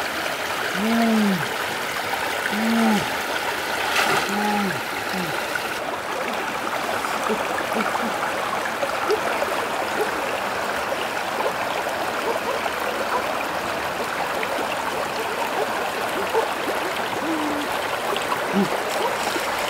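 Shallow stream running steadily over rocks, a continuous rush of water. In the first five seconds a few short low vocal sounds stand out over it.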